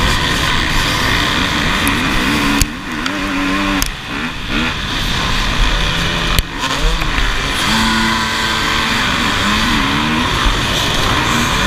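Many enduro dirt bike engines revving together in a tightly packed group, their pitches rising and falling as riders blip the throttle, with a few brief knocks among them.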